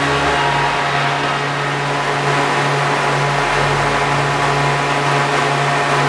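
Honda Civic Type R EP3's K20 four-cylinder engine running at a steady speed on a chassis dyno, a constant hum with a rushing of air from the large dyno cooling fan.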